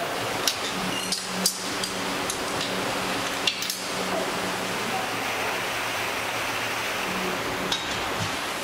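A handful of sharp metallic clinks from tools and steel parts as a motorcycle's rear wheel assembly is fitted, the loudest about a second and a half and three and a half seconds in, over a steady workshop hum.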